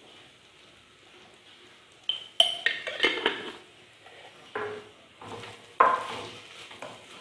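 A spoon clinking, knocking and scraping against a clay cooking pot as chopped bitter gourd is stirred in. A quick run of sharp, ringing clinks comes about two and a half seconds in, with single knocks later.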